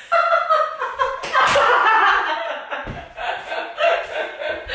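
Two people laughing loudly and at length, in fits of giggles.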